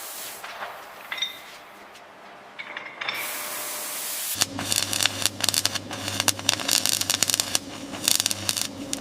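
A hissing spray fades away, leaving near quiet with a few faint tones. About four seconds in, a machine starts up with a steady low hum and rapid, irregular clicking and rattling.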